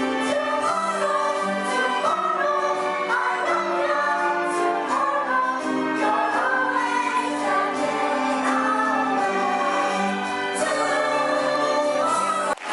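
Group of voices singing a musical-theatre song together over instrumental accompaniment, with long held notes. It breaks off suddenly near the end.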